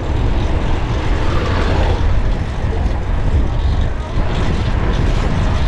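Steady rushing wind on the microphone and road noise while riding a fixed-gear bicycle through city traffic, with a deep low rumble underneath.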